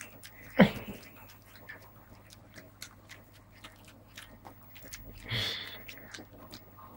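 A Staffordshire bull terrier chewing a milk candy with its mouth open, giving a run of wet smacks and teeth clicks. There is one louder smack about half a second in and a short breathy sound about five seconds in.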